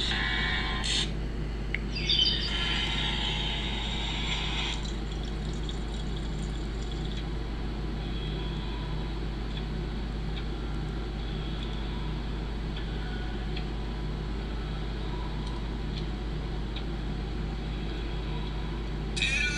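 Steady low electrical hum with a hiss. It is broken by brief louder bursts of higher-pitched sound near the start and again at the end.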